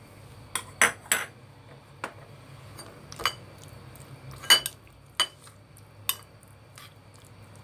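Metal spoon clinking against a ceramic bowl while stirring soy sauce into raw minced beef: about ten irregular, sharp clinks, loudest about a second in and again about four and a half seconds in.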